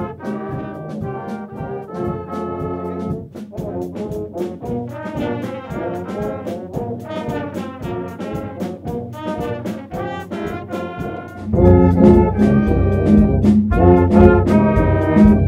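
Brass ensemble music, with trombones and trumpets over a steady percussion beat; the full band comes in much louder about eleven and a half seconds in.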